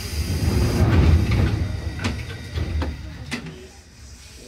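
Low rumble of an electric train, swelling over the first second or so and then fading, with several sharp clicks and knocks in the second half.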